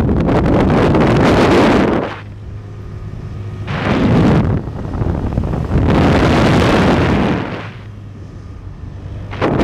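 Wind buffeting the microphone of a moving motorbike, coming and going in loud gusts of one or two seconds. In the lulls the steady hum of the motorbike's engine shows through.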